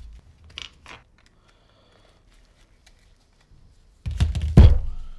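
A motorcycle brake caliper being handled during brake pad refitting: two small clicks in the first second, then a loud clatter of knocks and rattles about four seconds in.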